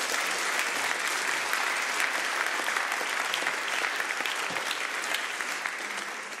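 Live audience applauding, a dense steady clapping that fades out near the end.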